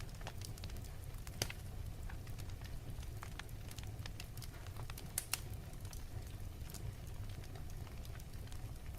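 Fireplace crackling: irregular sharp pops and snaps over a low steady rumble, with a louder pop about a second and a half in and two more a little past five seconds.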